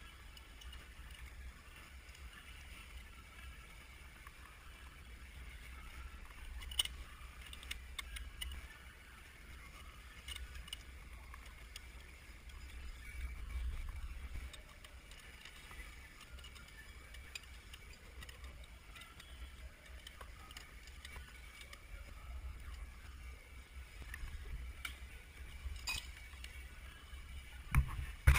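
Small metal clinks of hand tools and fittings, now and then, as work goes on in a jet ski's engine compartment, over a low steady rumble; a few loud knocks near the end.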